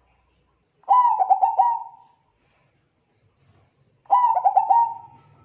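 Zebra dove cooing: two phrases about three seconds apart. Each is a strong opening coo followed by a quick run of short stuttering notes that trail off.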